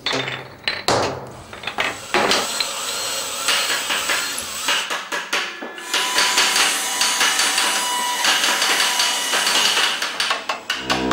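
Hammering and clattering of hand tools, a dense run of sharp knocks over a hissing background, getting busier about six seconds in: the noise of restoration work on the organ. Right at the end a sustained pipe-organ chord comes in.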